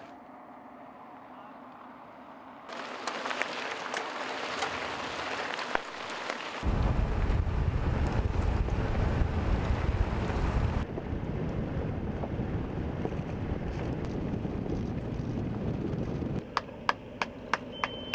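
Outdoor wind noise on the microphone, changing abruptly at several cuts, with a heavy low rumble of buffeting in the middle. Near the end comes a run of sharp, evenly spaced clicks.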